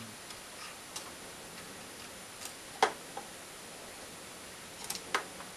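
Scattered light metallic clicks and ticks of a gapless piston ring rail being worked by hand into its groove under the compression ring, about half a dozen in all, the sharpest about three seconds in.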